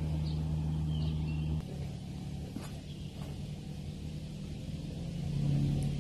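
Low, steady drone of a distant engine. It drops in level about a second and a half in, then swells again near the end.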